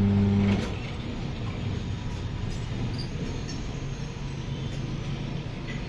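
The electric motor of a tyre-changing machine hums steadily, then cuts off about half a second in, leaving low background noise.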